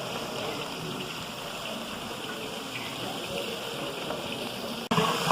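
Sliced onions sizzling steadily in hot oil in a large cooking pot. The sound breaks off for an instant near the end and comes back louder.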